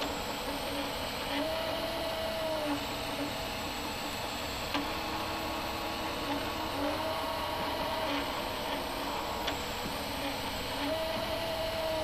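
Stepper motors of a laser engraver's gantry whining as the laser head rasters back and forth: every few seconds a tone rises, holds for about a second and falls as an axis speeds up and slows down, with shorter pulsing tones between, over a steady hiss.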